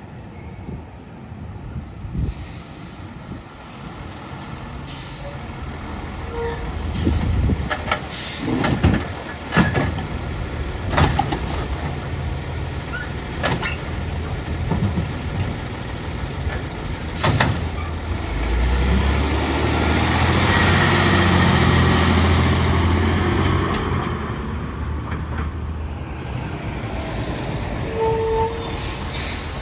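Autocar ACX garbage truck's diesel engine approaching and idling, with a series of sharp air-brake hisses and clanks as it stops at the curb. About halfway through, the engine revs up hard for several seconds to drive the hydraulic side-loader arm lifting a cart, then drops back to idle.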